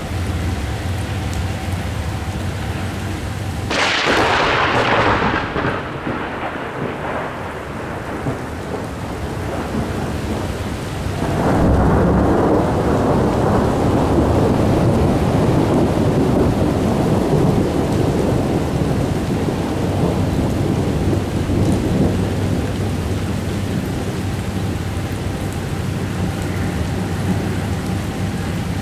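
Thunder over steady rain: a sudden sharp crack about four seconds in that fades over a few seconds, then a long rolling rumble from about eleven seconds in.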